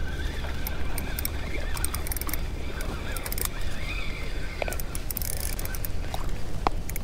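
A spinning reel is cranked in clicking bursts while a hooked mackerel is played on a light rod, with a steady rumble of wind on the microphone. Faint wavering high calls come through in the middle.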